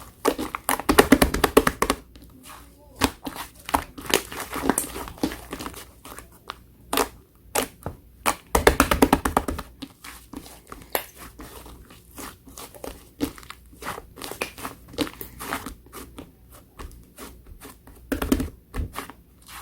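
Slime being squished, stretched and poked by hand: dense crackly, crinkling clusters with many scattered sharp clicks and pops. The loudest runs come about a second in, around nine seconds and near the end.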